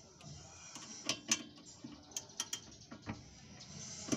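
Hand tools working on a car's rear brake caliper: a string of about eight sharp metallic clicks and light knocks, unevenly spaced.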